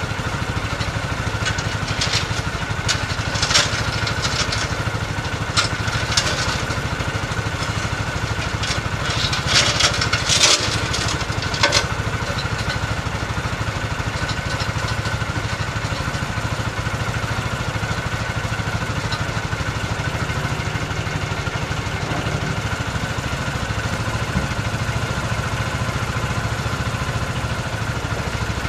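Compact front-loader tractor's engine idling steadily, with a run of sharp metallic clicks and clatters in the first half.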